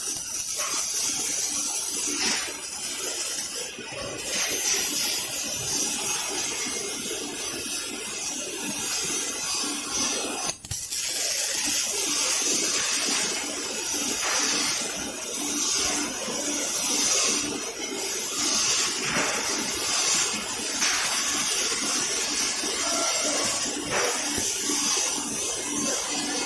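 Robotic welding arc hissing and crackling steadily, with a regularly pulsing hum underneath; the sound drops out briefly about ten seconds in.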